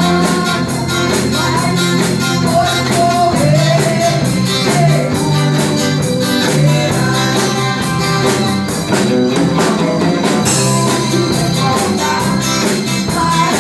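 Hymn music played by a band, with a melody line over a steady beat.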